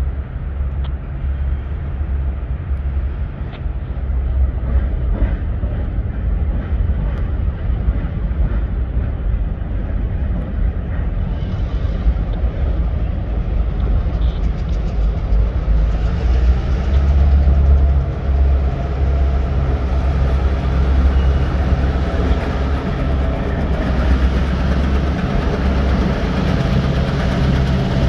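Diesel locomotives working at the head of a freight train, a deep steady engine rumble that grows gradually louder as the units approach and pass overhead on an elevated viaduct.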